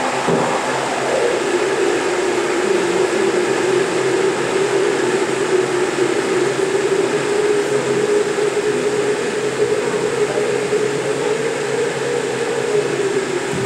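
High-powered countertop blender running continuously. Its motor pitch drops in the first second or so and then holds steady.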